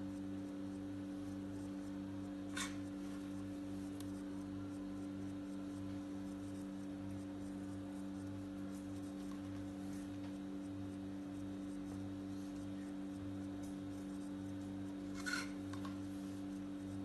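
Faint scraping of the brown crust being cut off a flattened slice of white bread, with two brief louder clicks, one about two and a half seconds in and one near the end, over a steady low electrical hum.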